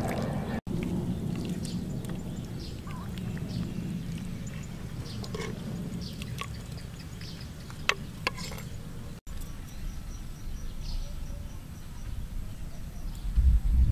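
Soup ladled from a clay pot into a bowl: broth pouring and dripping off a metal ladle, with a few light clinks.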